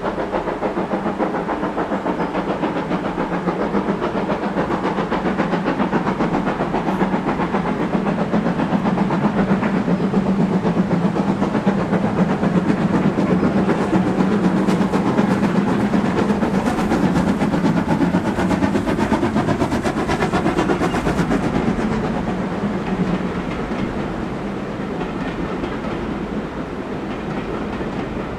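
Steam locomotive hauling a passenger train past, its chimney exhaust beating in a rapid rhythm over the clatter of wheels on the rails. The sound grows louder as the engine passes and eases off for the last few seconds as the carriages run by.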